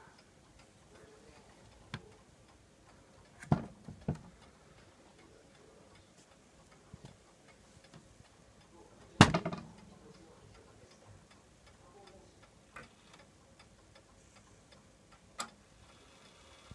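Oak mantel clock ticking softly while its minute hand is turned forward by hand, with a few sharp knocks and clicks from handling the open brass bezel and the case. The loudest knock comes about nine seconds in.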